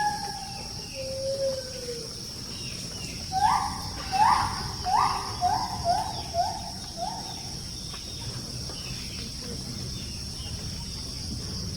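Wild gibbon singing: a long held note fades just after the start, a lower falling note follows, then a quick run of about seven short rising hoots. A steady high insect drone runs underneath.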